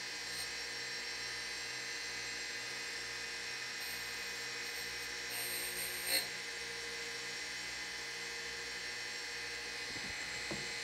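Surface grinder running steadily, its wheel spinning with an even whine and hum. Around four seconds in and again from five to six seconds, the end mill's flute lightly touches the grinding wheel, a brief high-pitched sound that is loudest just after six seconds.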